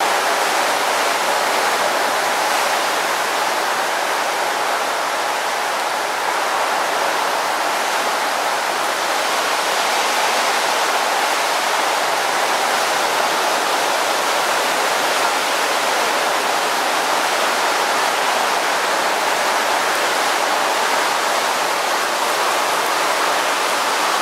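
Torrential downpour of rain, a steady, even hiss of heavy rainfall that neither builds nor eases.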